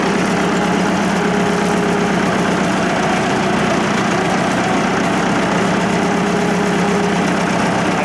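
Farm tractor's engine running steadily while the tractor drives along, heard close up from the driver's seat.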